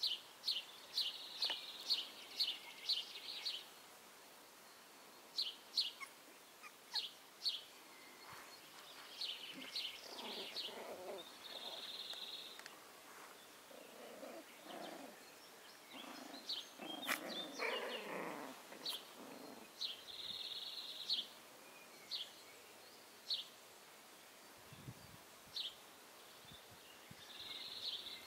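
Young Parson Russell Terrier puppies growling and squeaking softly as they play-fight, mostly through the middle. Over it, small birds chirp in short high notes, several a second at the start and scattered after.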